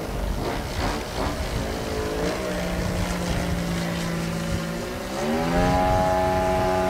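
The twin-cylinder two-stroke DLE 111cc gasoline engine of a radio-controlled Sbach aerobatic plane running in flight. It holds a steady low drone, then its pitch rises about five seconds in and holds steady at the higher pitch.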